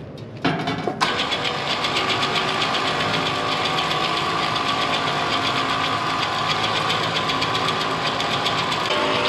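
The motor pump set's engine running steadily, a loud, even machine sound that comes in abruptly about a second in.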